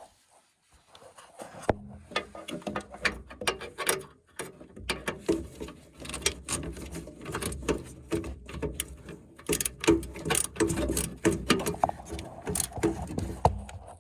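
Ratcheting multi-bit screwdriver clicking in quick, irregular runs as a screw is worked loose, starting after about a second and a half.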